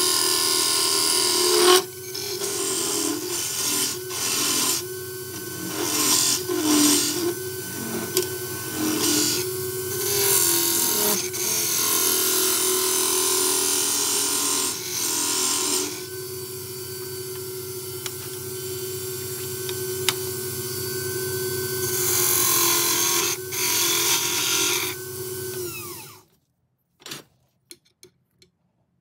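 Wood lathe running with a steady motor hum while a turning tool hollows the inside of a spinning oak blank, the cut coming and going in bursts of scraping as the tool is worked in and out. The lathe shuts off near the end, leaving only a few faint clicks.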